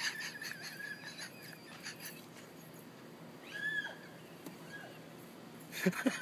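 Faint, short high-pitched bird calls, with one clearer arching call a little before the middle.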